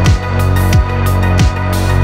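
Electronic background music with a steady beat: deep kick drums that drop in pitch about every two-thirds of a second, with a sustained bass and crisp high hits between them.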